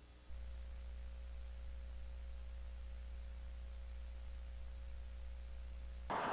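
Steady low electrical hum with a faint thin tone above it, and no other sound. Right at the end, a sudden loud rush of noise cuts in.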